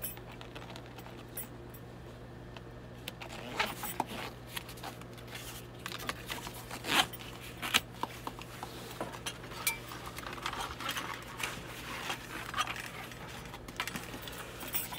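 Handling of a scuba harness's nylon webbing and metal hardware while a tri-glide is worked back onto the strap: scattered light clinks and rustling, with a few sharper knocks about 4 and 7 seconds in. A steady low hum runs underneath.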